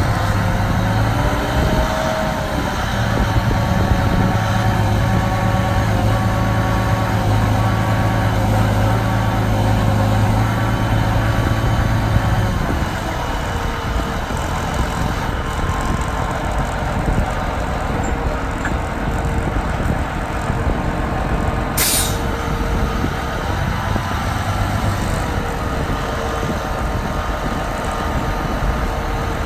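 Diesel power pack of a Mammoet self-propelled trailer running with a steady low hum and a whine from its drive, the hum dropping away about twelve seconds in. A brief sharp hiss of air comes about two-thirds of the way through, with wind buffeting the microphone.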